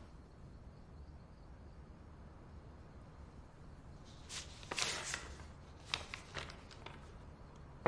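Sheets of printed paper rustling and sliding on a tabletop as they are handled, about halfway through, followed by a few light taps and clicks. Otherwise faint room tone.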